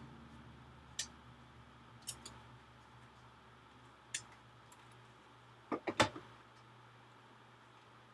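Light clicks and taps of small tools and parts being handled during reassembly of an iMac, a few scattered single clicks, then a quick run of three louder knocks about six seconds in.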